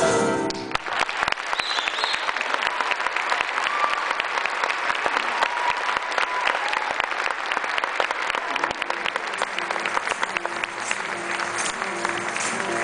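Audience applause with some cheering, filling the gap after the show choir's song ends. About nine seconds in, music starts up quietly beneath the clapping.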